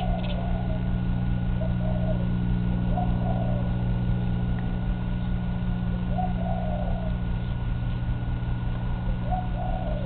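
Cat making short, soft warbling chirps at a bird: about five brief calls, spaced a second or more apart, over a steady low hum.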